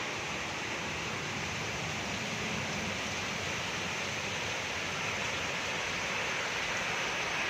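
Heavy rain falling, a steady, even hiss with no thunderclap.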